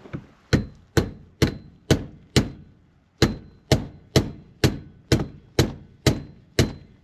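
A hand hammer striking repeatedly, about two blows a second with a brief pause about two and a half seconds in, knocking a tight-fitting part of the transmission shift-cable installation into place.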